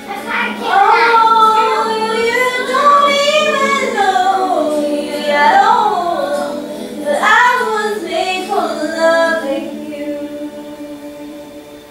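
A child singing a tune, with long notes that slide up and down.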